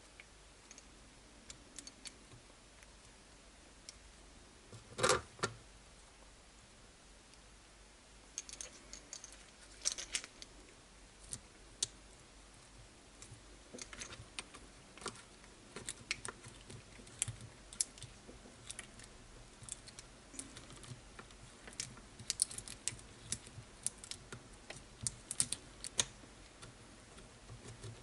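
Light clicks and taps of small metal and plastic parts and hand tools being handled while a shock absorber is fitted to an RC buggy chassis. A louder pair of knocks comes about five seconds in, and quick light clicks grow denser through the second half.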